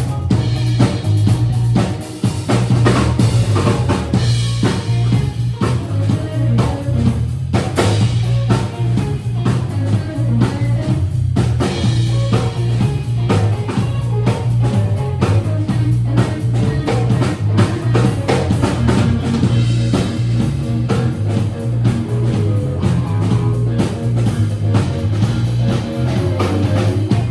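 Rock music: an electric guitar, a Gibson Les Paul played through a Two-Rock amplifier and a Suhr Hombre pedal, plays with a full drum kit, without a break.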